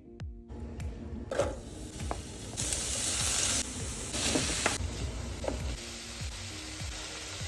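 Zucchini and corn sizzling in a hot frying pan as they are stirred, louder in two spells around the middle, with a few knocks. Background music with a steady beat plays underneath.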